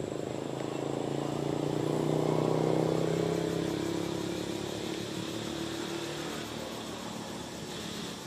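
A motor vehicle's engine passing by, a steady hum that grows louder to a peak about two to three seconds in and then fades away.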